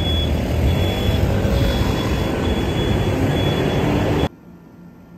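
City street traffic noise: a dense, loud rumble of passing vehicles, with a high beep that comes and goes. It cuts off suddenly about four seconds in.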